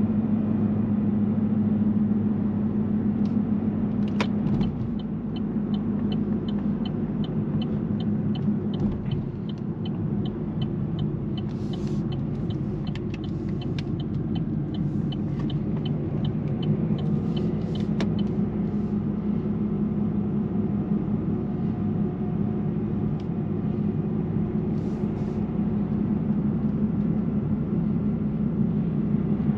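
Inside the cabin of an Opel Insignia 1.6 CDTI, its four-cylinder diesel and the road make a steady low hum. A turn-signal indicator ticks evenly, about twice a second, from a few seconds in until a little past the middle, as the car takes the exit.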